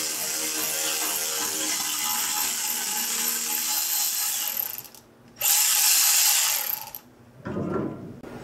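Small power driver running in two bursts, the first stopping just under five seconds in and the second starting half a second later, as it tightens worm-gear hose clamps on an aluminium radiator pipe. The clamps are bottoming out before they grip.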